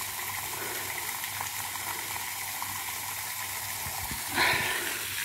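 Garden pond fountain: a single water jet spraying up and falling back onto the pond in a steady splashing hiss, briefly louder near the end.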